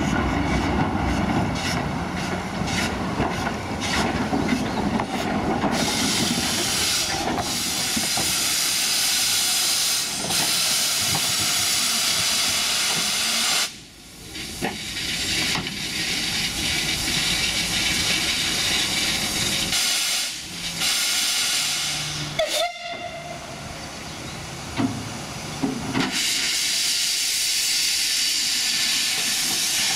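Steady hiss of escaping steam from the small 0-4-0 saddle tank steam locomotive Dunlop No 6, with steam blowing from its cylinder drain cocks near the end.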